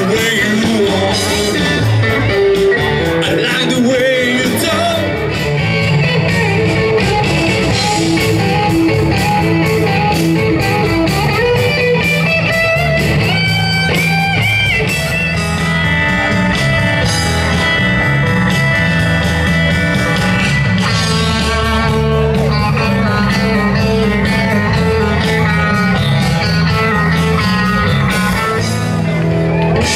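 Live band playing amplified music: guitar, bass guitar and drums, continuous and loud.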